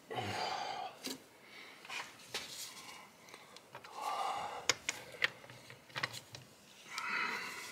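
Quiet hand-tool work on a drain plug: several light, sharp metallic clicks and taps at irregular intervals, between three short hissing rustles.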